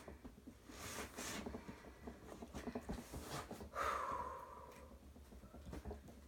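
Faint rustling and scraping of packaging being handled during an unboxing, with two short swishes, about a second in and about four seconds in.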